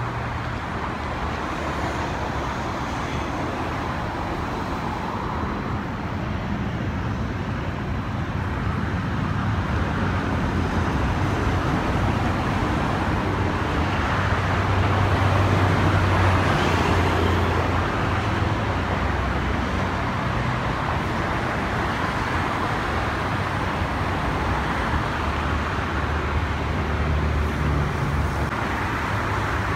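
Steady road traffic: a continuous wash of cars and other vehicles going past, swelling for a few seconds around the middle.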